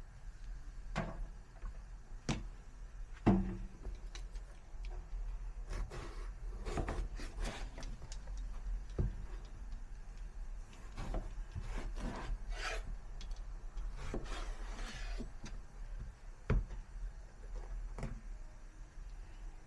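Kitchen work with irregular knocks and scraping on a wooden surface, with scattered sharp taps and a few longer stretches of scraping.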